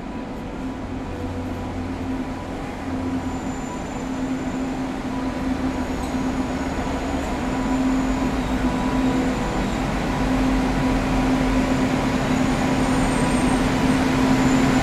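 WAG9 electric locomotive drawing into the platform at the head of a passenger train: a steady hum over rolling rail noise that grows gradually louder as the locomotive nears and passes alongside.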